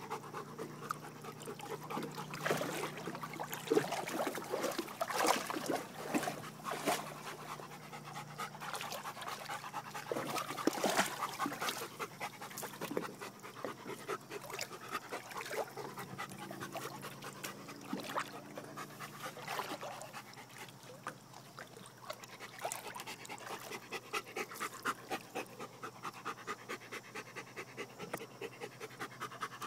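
Bernese mountain dog panting while it swims, quick regular breaths close to the microphone.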